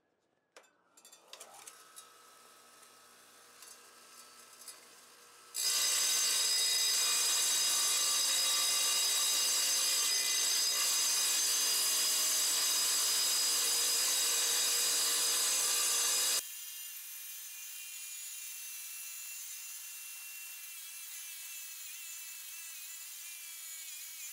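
Small wet tile saw switched on, its motor rising to speed with a short climbing whine, then its diamond blade grinding through petrified wood. The grinding is loud and steady for about ten seconds, then drops suddenly to a quieter, thinner grind. The blade is cutting without enough water reaching it, which throws sparks and wears it early.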